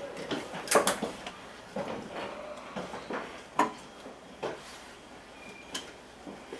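JR Central 371 series electric train creeping over station points on a curve: irregular clanks and clicks of the wheels crossing rail joints and switch frogs, with a few short squeaks.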